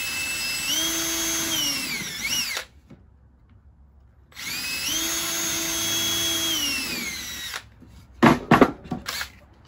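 Cordless drill pre-drilling into a 2x4 wooden block: two runs of about three seconds each with a pause between, the motor whine stepping up in pitch as it speeds up and dropping as it winds down. A few sharp knocks about eight seconds in.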